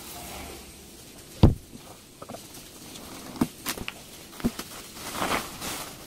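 Unboxing a wood stove: the shipping box comes down with one heavy thump about a second and a half in, followed by a couple of lighter knocks, then the plastic wrap rustles as it is pulled off the stove near the end.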